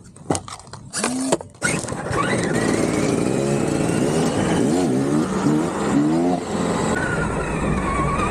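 Remote-control car driving, its motor running loudly with a whine that rises and falls in pitch as the throttle changes. It starts about two seconds in, after a few light clicks.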